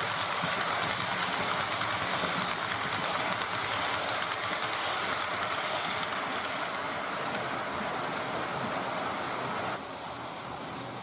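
H0-scale model train running along the layout track: a steady whirring and rolling hiss from the motor and wheels on the rails. The sound drops abruptly to a lower level near the end.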